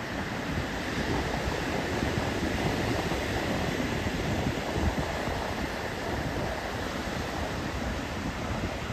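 Ocean surf of small two-to-three-foot waves breaking and washing onto a sandy beach, a steady rushing wash, with wind buffeting the microphone in a low, fluttering rumble.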